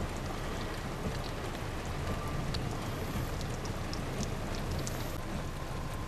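Steady rain falling, with scattered faint ticks of drops striking a surface.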